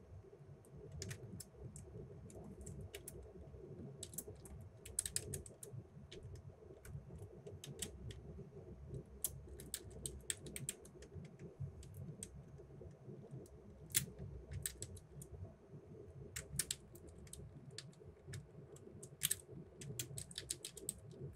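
Computer keyboard typing: quick keystrokes in short irregular runs with pauses between them, over a low steady room hum.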